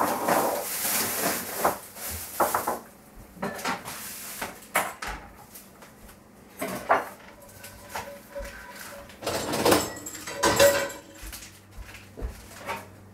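Kitchen clatter of metal pots, dishes and utensils being handled, in scattered knocks and clinks with a faint metallic ring about ten seconds in.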